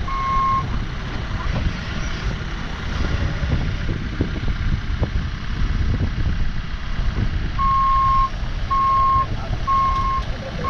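Case rough-terrain forklift's engine running under load, its reverse alarm beeping about once a second at the start and again from about three-quarters of the way in as it backs up.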